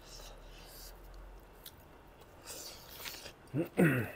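Soft chewing and mouth sounds of people eating rice and pork with their hands, then a short burst of voice near the end.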